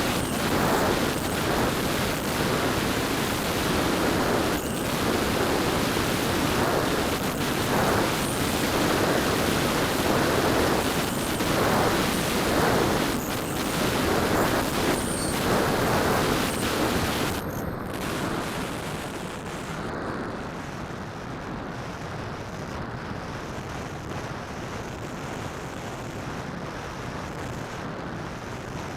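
Rushing wind and propeller noise picked up by a keychain camera's microphone riding on a DJI Phantom quadcopter in flight. The noise drops noticeably about 18 seconds in and stays quieter afterwards.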